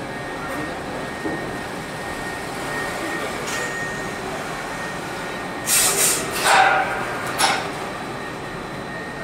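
Conduit pipe socketing machine running with a steady mechanical noise and a faint high whine. About six seconds in come three or four short, sharp bursts of hiss, the machine's pneumatic cylinders releasing compressed air.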